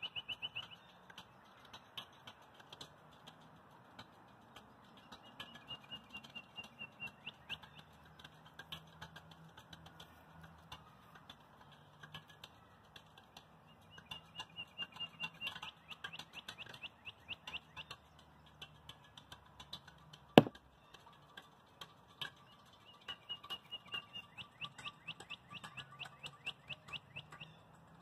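A bird calling in repeated bouts of rapid, high-pitched chips, each bout lasting a couple of seconds. A single sharp knock comes about twenty seconds in.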